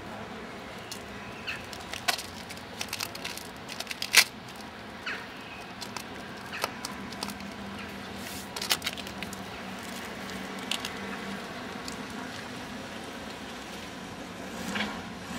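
Scattered crinkling crackles and light clicks of crumpled material being pressed by hand into the cracks of a stone wall, over a steady low background noise; the sharpest click comes about four seconds in.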